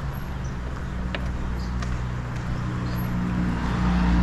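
Kawasaki Z800 motorcycle's inline-four engine turning at low revs as the bike rolls in gear during a bump start on a weak battery. It holds a steady low note that rises slightly in pitch and gets louder near the end.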